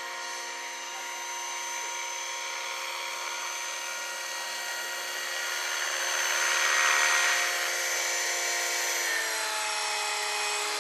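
Radio-controlled Airwolf scale model helicopter flying: a steady high-pitched whine from its motor and rotor head. A rushing blade swish swells about six to eight seconds in as it comes close, and the whine drops slightly in pitch about nine seconds in as it slows down.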